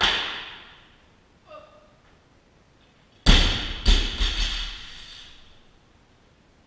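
A loaded barbell with bumper plates is dropped from overhead onto a lifting platform: one heavy thud, then a few smaller bounces with the plates rattling and fading away. Near the start there is a sharp impact with a ringing tail as the jerk is caught overhead, and a short vocal sound follows about a second and a half in.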